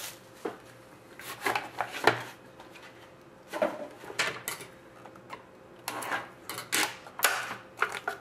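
A cardboard trading-card box being handled and opened: scrapes, taps and rubbing as it is turned over and its lid is lifted off, in several short bursts with pauses between.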